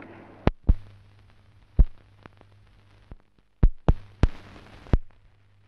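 Worn newsreel film soundtrack noise after the speech cuts off: a steady low hum and faint hiss broken by about seven sharp clicks and pops, scattered irregularly, with a cluster of them around four seconds in.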